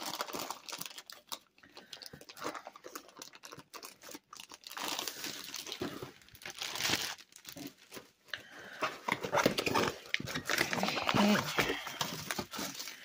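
Clear plastic wrapping crinkling as a rolled diamond-painting canvas is handled and unrolled: irregular crackles that are busiest in the second half.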